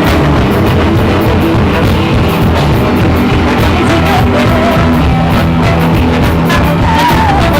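Live rock band playing loudly. The drums keep a steady beat of cymbal hits over bass notes, with a wavering pitched line above.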